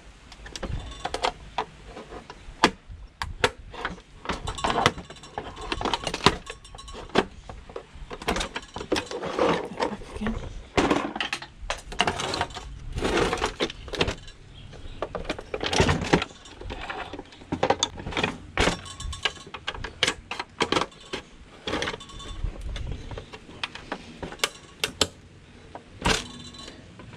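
Hand tools and hands working on the plastic casing of a Singer sewing machine: irregular clicks, knocks and scrapes of a screwdriver on screws and of plastic being handled and pried.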